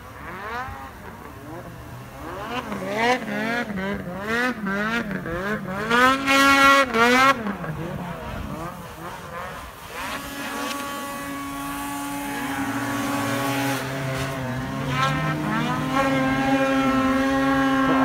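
Snowmobile engines revving hard, the pitch sweeping up and down over and over in the first several seconds, then held at a steady high pitch from about ten seconds in, falling off near the end.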